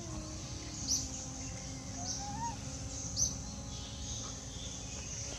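A bird chirping in short, high, rising notes, roughly one a second, over a steady high hiss of the forest.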